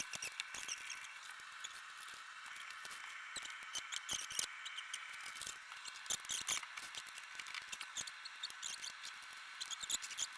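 Fast-forwarded audio of hands-on installation work: a busy jumble of rapid clicks and taps with short high-pitched squeaks over a steady high hiss.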